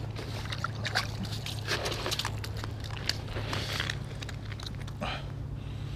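A crappie lifted out of an ice-fishing hole and handled on the ice: irregular splashing, scraping and clicking, over a steady low hum.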